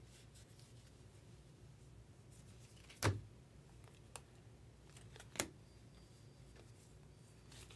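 Faint handling of a stack of baseball trading cards being sorted by hand, over a low steady hum, with two sharp clicks standing out, about three seconds in and again about five and a half seconds in.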